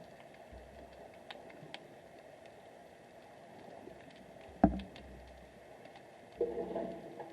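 Underwater sound picked up by a submerged camera: a steady hiss with scattered faint clicks, one sharp knock a little past halfway, and a brief rough rumbling burst near the end.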